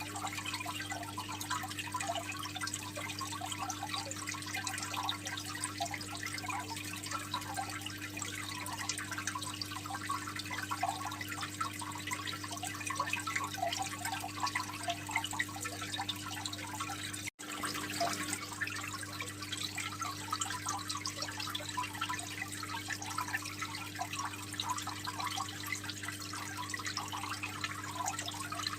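Water trickling and splashing in a home aquarium, a dense patter of small drips over a steady low hum. The sound cuts out for an instant about 17 seconds in.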